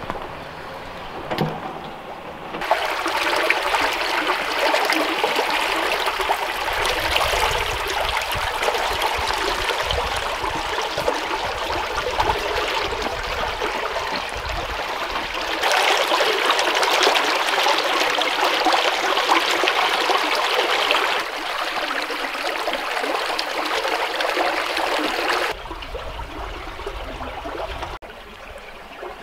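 Small woodland brook running and trickling under a log bridge, a steady rush of water whose loudness steps up and down abruptly a few times.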